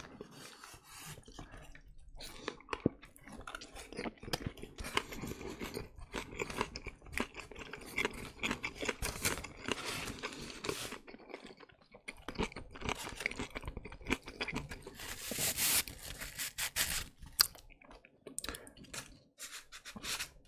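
Close-miked ASMR chewing: a person eating a Burger King veggie burger, with irregular clicking and smacking mouth sounds right at the microphone.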